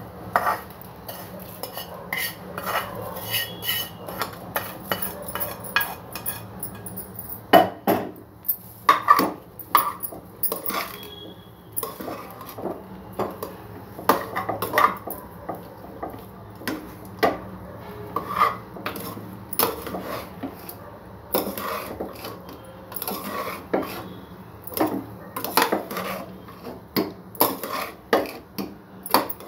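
Metal spatula scraping and clinking against the inside of a metal pot while mixing cooked rice, a run of irregular scrapes and knocks.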